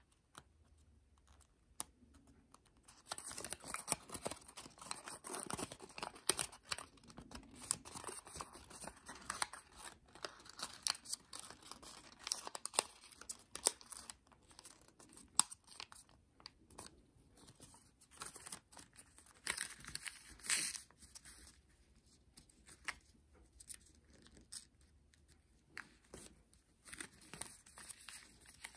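A sheet of thin kami origami paper rustling and crinkling as hands fold and crease it, in irregular spurts with sharp crinkles. It is quiet for the first few seconds before the handling starts.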